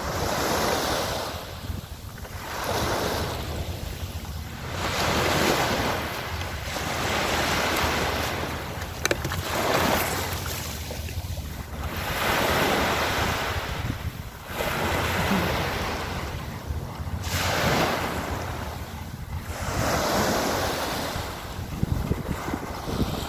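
Small sea waves washing onto a sandy shore, each surge swelling and fading about every two and a half seconds, with wind buffeting the microphone.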